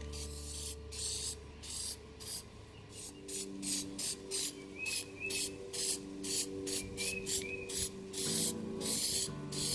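Aerosol spray-paint can hissing in many short spurts, about two to three a second.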